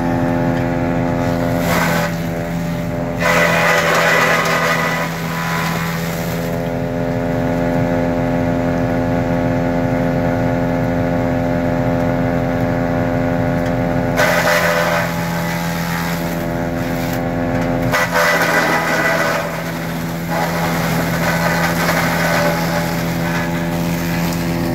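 Tractor engine running at about 1300 rpm and driving a Trapp TRF-800 forage chopper through its PTO, a steady drone. Over it come about four loud bursts of chopping as sugarcane stalks are fed in, with the note dropping slightly around the later bursts.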